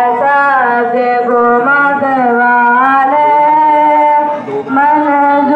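A man singing a naat unaccompanied, in long drawn-out melodic notes, with a short break for breath about four and a half seconds in.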